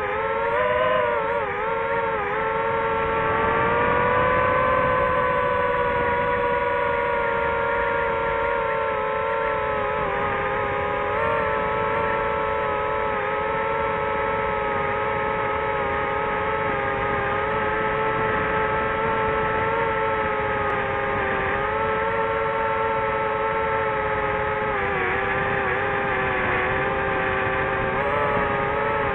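DJI FPV drone's motors and propellers whining steadily in flight. The pitch wavers up and down in the first couple of seconds with the throttle, holds steady for most of the time, and dips slightly a few seconds before the end.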